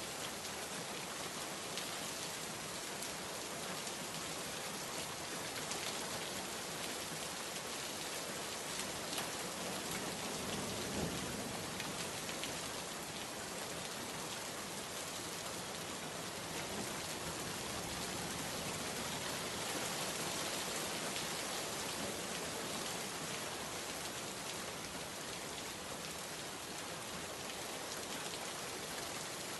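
Steady rain falling, with a faint low rumble of thunder about ten seconds in.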